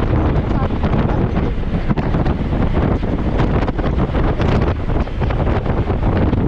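Strong wind noise buffeting the microphone of a camera riding along on a road bike at speed, a steady low rumble.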